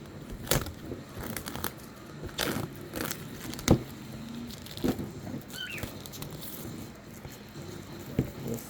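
Plastic shrink wrap being torn and peeled off a model kit box: irregular crackling and crinkling, with the sharpest crackle a little under four seconds in. A pet cockatiel chirps briefly about halfway through.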